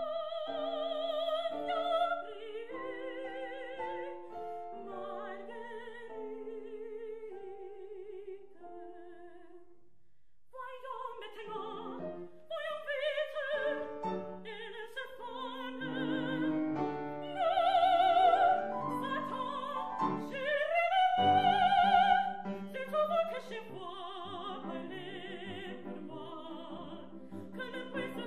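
A woman singing an operatic aria in French with vibrato, accompanied by a grand piano. The voice drops away briefly about ten seconds in, then returns with louder, longer held notes in the second half.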